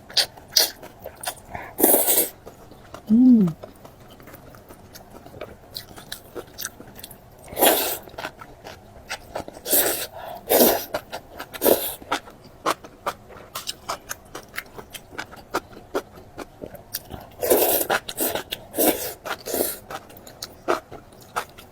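Close-up eating sounds of glass noodles in sesame sauce: several short, loud slurps with soft wet chewing and small mouth clicks between them.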